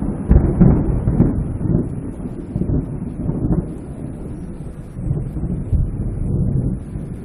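Wind buffeting the phone's microphone: an irregular, gusting low rumble that swells and fades.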